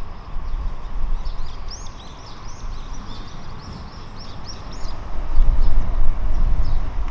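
Small birds chirping in quick, repeated short calls, over a low rumble that grows louder about five seconds in.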